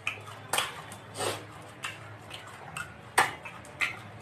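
Hands scooping puffed rice (muri) from stainless steel bowls: about seven short, sharp clinks and rustles, the loudest a little after three seconds.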